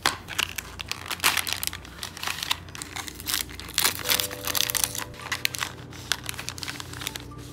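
Foil-lined chocolate packaging being opened by hand: a dense, irregular run of crinkling and tearing as a cardboard box flap is pulled open and a foil inner wrapper is peeled and handled.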